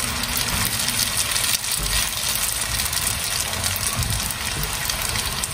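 Spaghetti sizzling and crackling in a hot frying pan on the stove, over a steady low hum.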